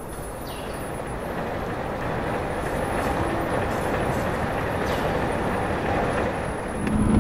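A minibus driving up a dirt road, its engine and tyres growing steadily louder as it approaches and draws level.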